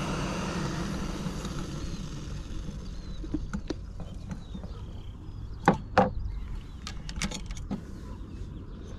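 APG canister gas stove's burner hissing, then dying away over the first couple of seconds as its valve is turned off. Then metal clinks and two loud knocks about six seconds in as the pot is handled and lifted off the stove.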